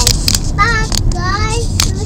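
A young child singing in a high voice, with a steady low road rumble inside a moving car underneath and a few sharp clicks.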